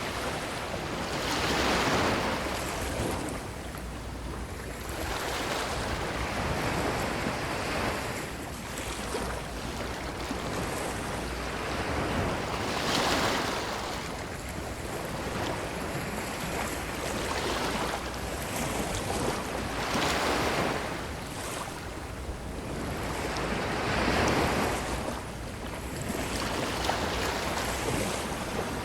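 Ocean waves breaking and washing up a beach: a continuous surf noise that swells into a louder surge every few seconds, the strongest about two seconds in, near the middle and towards the end.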